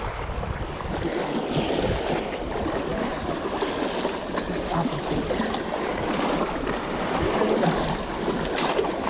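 Sea surf washing and splashing steadily against the boulders of a rock breakwater.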